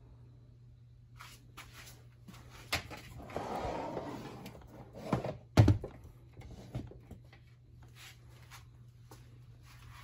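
Plastic box fan being handled and turned around on a plastic storage tote: scattered clicks and knocks, a scraping slide about three seconds in, and a sharp thump, the loudest sound, about five and a half seconds in.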